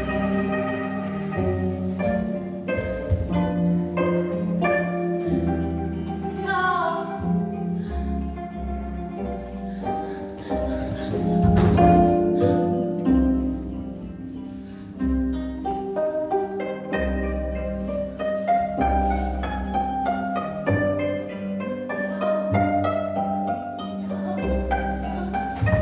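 Instrumental music of plucked strings, many short picked notes over sustained low bass notes.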